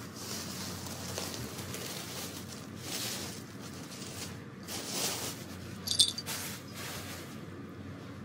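Soft rustling of cats shifting about over a steady faint room hiss, with one short metallic jingle from a cat's collar about six seconds in, the loudest sound.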